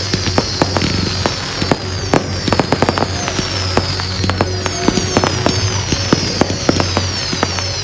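Firework display: rapid crackling and popping from ground-launched rockets and fountains. Short whistles fall in pitch over and over.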